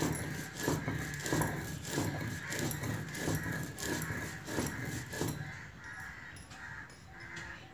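Stone rolling pin being rubbed back and forth on a flat grinding stone (sil-batta), grinding roasted panch phoran spices while still hot. Rhythmic grinding strokes, about three every two seconds, easing off near the end.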